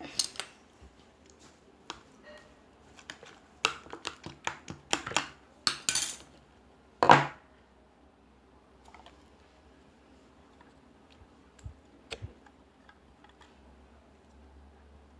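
Slime containers and tools being handled: a quick run of clinks and taps, the loudest about seven seconds in, then a few faint taps.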